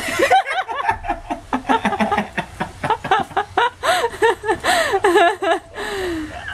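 People laughing hard: a fast run of short, high-pitched laughs that tails off into one falling note near the end.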